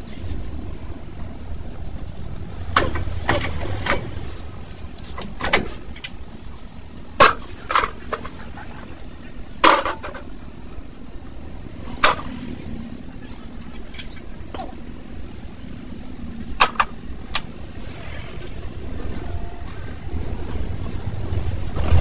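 About a dozen sharp, separate metal clanks and knocks as a truck wheel hub, its bearings and hand tools are handled on a steel tray and around the axle, over a low steady rumble.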